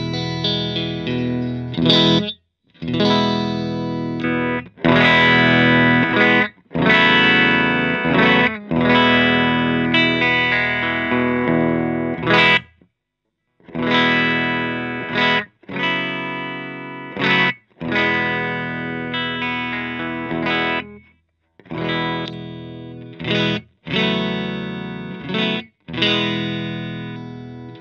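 Electric guitar played through an Ampeg R-212R Reverberocket valve combo amp: chord after chord struck and left to ring and fade, with brief silences between.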